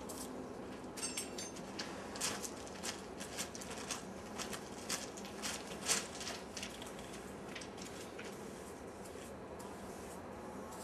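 Footsteps crunching and scuffing on the gravel ballast beside a railway track: a string of short, irregular crunches, busiest in the first half and thinning out later.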